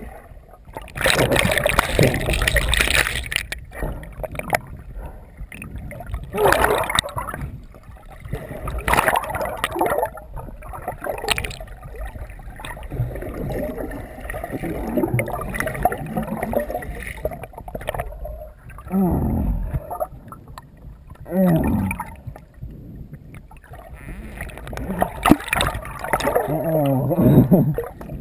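Water sloshing and gurgling, muffled as heard from underwater through a camera's waterproof housing, in uneven surges. Now and then muffled, unintelligible voices come through from above the surface, most clearly near the end.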